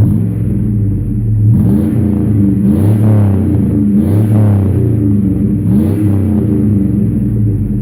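The 2002 Chevy Tahoe's 5.3L V8, breathing through a Dynomax cat-back exhaust, idling warm and then revved about four times in quick succession, each rev rising and falling back to idle.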